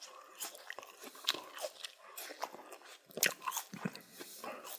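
A person eating close to the microphone: irregular biting and chewing with wet mouth noises.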